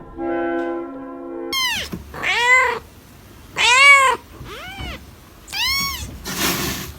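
A cat meowing about five times, each meow rising and falling in pitch, the loudest about midway. Music plays for the first second and a half, and a short rush of noise comes near the end.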